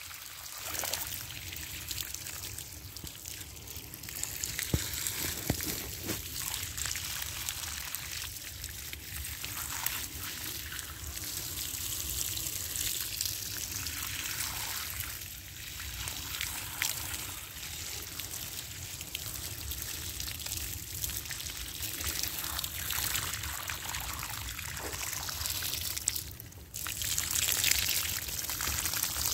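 Water running and splashing steadily over brickwork, a continuous trickling hiss that drops briefly about 26 seconds in.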